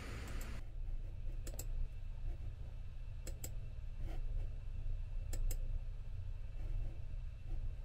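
Computer mouse clicking: four quick double clicks, a second or two apart, over a low steady hum.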